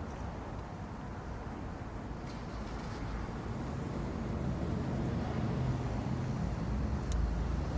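Steady low rumble like a nearby vehicle engine running, slowly growing louder, with a couple of faint clicks from the box being opened.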